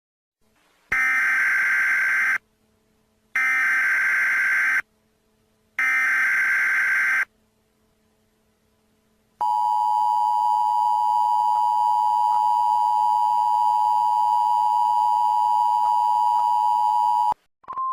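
Emergency Alert System signal: three bursts of SAME header data, each about a second and a half with short gaps between, then after a pause the steady two-tone EAS attention signal held for about eight seconds before it cuts off.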